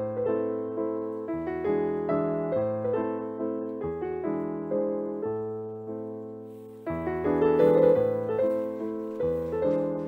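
Background piano music: a gentle melody of evenly paced notes, each struck and fading, over slowly changing chords. It thins out briefly and comes back fuller about seven seconds in.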